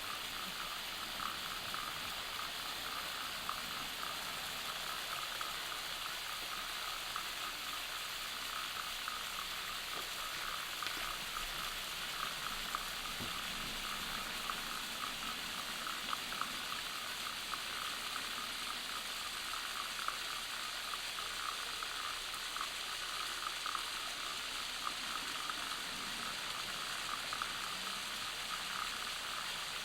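Steady rushing of a waterfall, with a dense chorus of rapid, evenly pitched chirps from calling animals layered over it.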